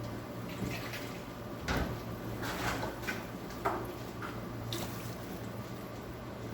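Water poured into a cooking pan, splashing and dripping, with a few light knocks and clatters of a utensil or vessel, over a steady low hum.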